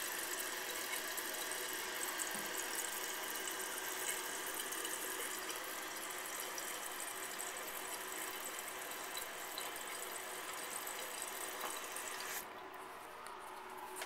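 Crane Galaxy toilet tank refilling: water hissing through the fill valve with faint steady tones in the hiss, and the refill tube running into the overflow tube. A little over twelve seconds in, the hiss cuts off sharply as the fill valve shuts, leaving a softer water sound.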